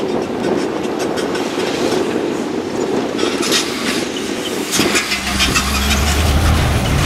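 MAN rally truck's diesel engine running as the truck drives through soft sand. About two-thirds of the way through, the sound changes to a closer, deeper engine note.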